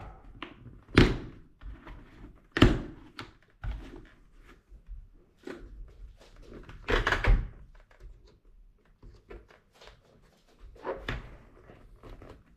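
Handling noise from a motorcycle helmet as its inner padding is taken out: two sharp knocks about a second and nearly three seconds in, a longer rustling scrape around seven seconds, and scattered light clicks and taps from the liner and shell.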